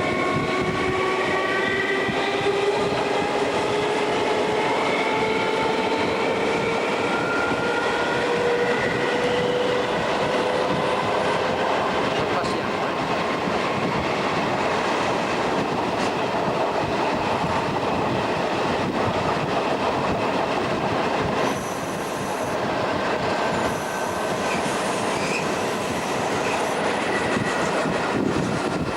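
Train with FS Centoporte coaches running on the track, a steady rumble of wheels on rails with a whine that rises slowly in pitch over the first dozen seconds as the train picks up speed.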